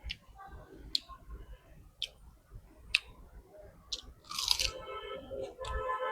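A person chewing a mouthful of rice, dal and pork close to the microphone, with sharp clicks about once a second. A pitched, voice-like tone comes in about four seconds in.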